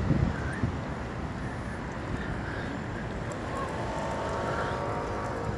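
Steady city traffic rumble with wind buffeting the microphone; a faint, even, several-toned hum joins about three and a half seconds in.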